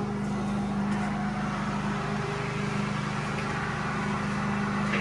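A steady, low machine hum with a hiss over it, holding an even level throughout.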